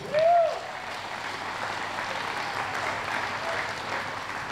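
Audience in a large hall applauding, a steady patter of clapping. It opens with one short call that rises and falls in pitch.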